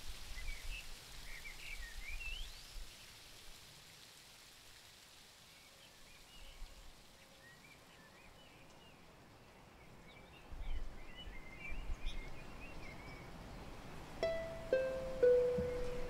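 Background music made of nature sounds: a soft rain-like hiss and scattered bird chirps, joined near the end by a few plucked string notes.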